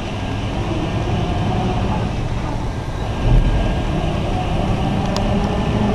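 Steady mechanical rumble of a large rail-mounted gantry crane working in a shipyard, with a faint steady whine over it and a short low bump about three seconds in.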